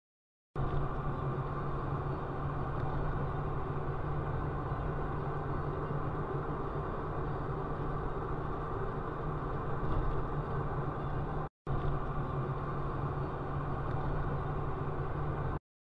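Steady engine and road noise of a car driving, heard from inside the cabin, with a low hum underneath. The sound drops out for an instant about two-thirds of the way through.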